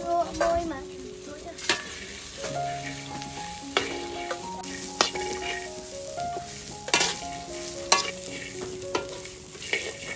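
Metal spatula stirring corn kernels as they roast in a large steel wok, with a sizzle and a few sharp scrapes of the spatula against the pan.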